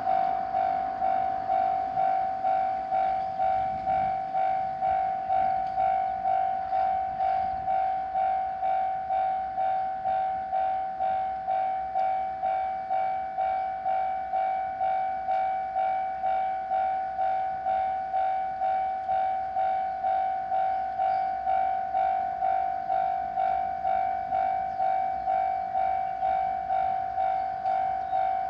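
Japanese level-crossing warning bell ringing steadily, about two strokes a second, each stroke a single pitched ding that dies away: the crossing is signalling that a train is approaching.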